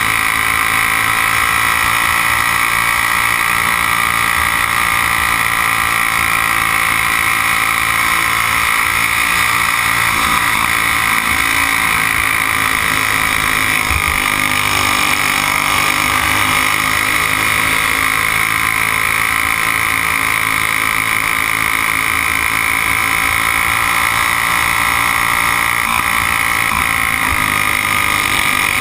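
Briggs & Stratton Raptor engine of a dirt-oval racing kart running hard, heard onboard. Its pitch sags and climbs again a couple of times as the kart goes through the turns.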